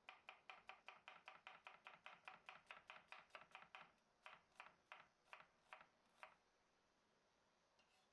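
Knife chopping on a cutting board in quick even strokes, about five a second, then slowing to a few spaced strokes that stop about six seconds in.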